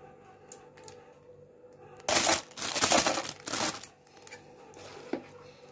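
Thin plastic bag crinkling and rustling as it is handled while thick batter is loaded into it, in two loud bursts about two seconds in, with faint ticks around them.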